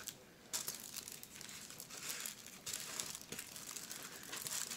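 Plastic packaging crinkling faintly and irregularly as a plastic-wrapped rolled canvas and a strip of sealed plastic bead bags are handled, starting about half a second in.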